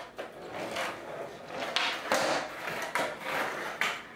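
Skateboard rolling on a concrete floor, with several sharp clacks and knocks of the wooden deck and a few foot scuffs, the sharpest about halfway through and again near the end.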